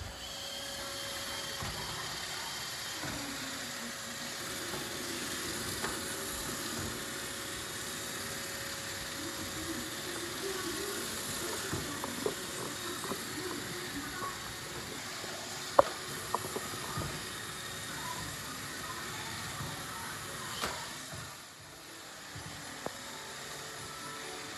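Roomba robot vacuum running with a steady whirring hiss, with a few sharp clicks about two-thirds of the way through.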